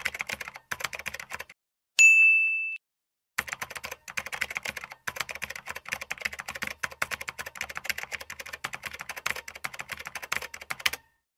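Fast typing on a computer keyboard, a dense run of key clicks. About two seconds in the typing pauses for a single bright ding that rings out in under a second, then the typing resumes and runs until just before the end.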